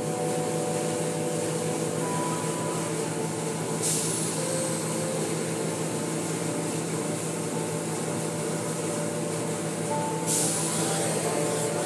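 Automatic car wash heard from inside the car: a steady hum of the wash machinery with water spraying over the car. The spray surges to a louder hiss about four seconds in and again near the end.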